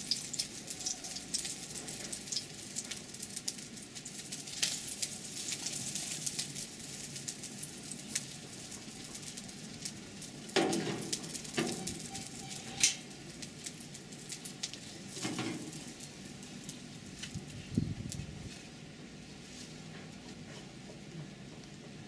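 Cha-om and egg omelette frying in oil in a steel wok, sizzling and crackling. A few knocks and scrapes of a metal spatula against the wok come in the middle, and the sizzle dies down near the end.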